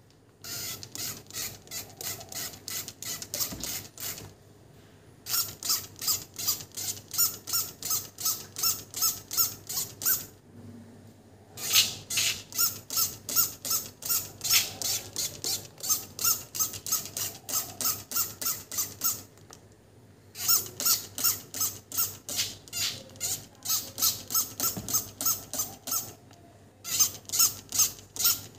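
Plastic trigger spray bottle misting water onto potted plants: quick spritzes about three a second, in runs of several seconds broken by short pauses.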